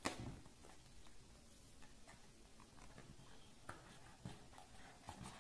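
Faint handling sounds of a white cardboard smartphone box as its lid is slid off by hand: a short rustle at the start, then a few soft, scattered ticks of cardboard.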